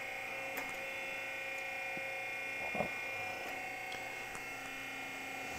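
Powered tube bender's electric motor running with a steady hum as its die swings round and bends a 5/8-inch square steel tube.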